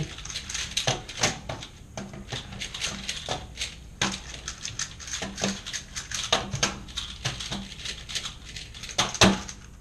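Speedcubes being turned quickly by hand: a dense, irregular run of plastic clicks and clacks, with one louder clack near the end.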